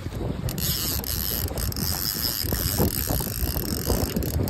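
Fishing reel ratcheting in a rapid, continuous run of clicks while a hooked fish is played on the rod.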